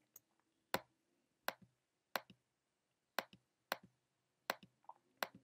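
Computer clicking: a series of eight or nine sharp single clicks, irregularly spaced about half a second to a second apart.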